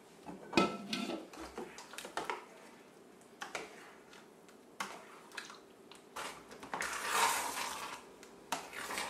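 Stirring of thickening apple-and-vanilla-pudding filling in a stainless steel pot: scattered light knocks of the utensil against the pot, and a longer wet, squelching stir about seven seconds in.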